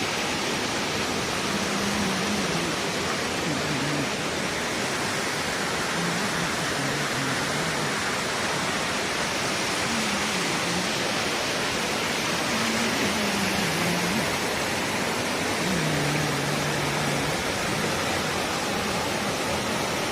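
Waterfall rushing steadily, a constant, even roar of falling water.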